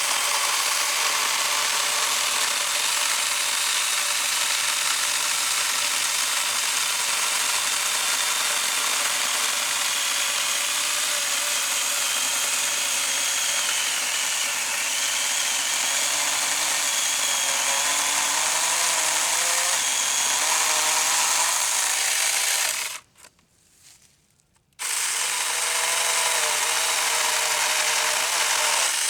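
Saker mini battery-powered chainsaw running steadily under load as it cuts through a thick firewood log. It stops for about two seconds near the end, then runs again.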